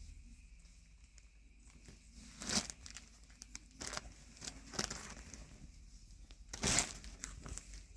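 Crinkling and rustling as a kilt and its plastic packaging are handled, in several short rustles, the loudest near the end.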